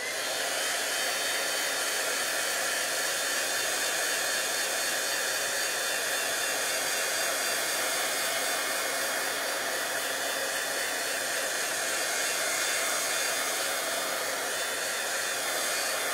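Handheld craft heat gun running steadily, its fan blowing hot air to dry wet ink.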